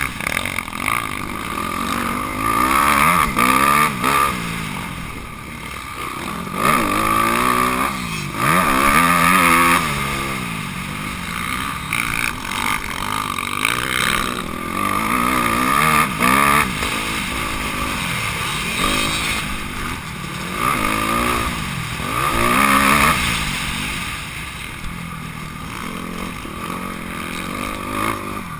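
Honda CRF250R's four-stroke single-cylinder engine being ridden hard on a motocross track, revving up and dropping back over and over as the rider accelerates and backs off.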